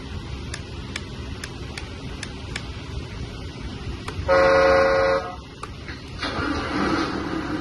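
1/14-scale RC hydraulic wheel loader sounding its horn: one steady toot of about a second, the loudest thing here. About a second later its electric motor and hydraulic pump start running steadily.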